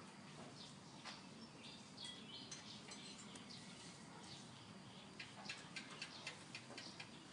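Near silence: quiet room tone with faint, scattered short high chirps and ticks.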